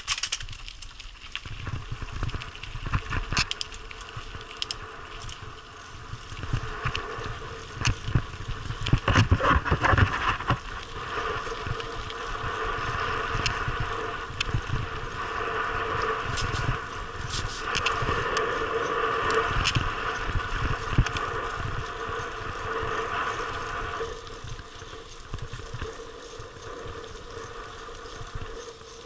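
Mountain bike rolling fast down a loose gravel track: tyres crunching over stones, with irregular knocks and rattles from the bumps. The rolling noise grows louder and steadier through the middle and eases off near the end.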